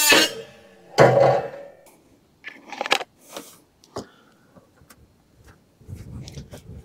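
A small cutoff-wheel tool's whine dies away. It is followed by a louder clatter about a second in, then scattered clicks, taps and scrapes of sheet-metal roofing being handled.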